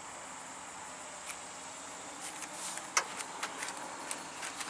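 Steady high-pitched insect chirring, with a few short light clicks and rustles in the second half.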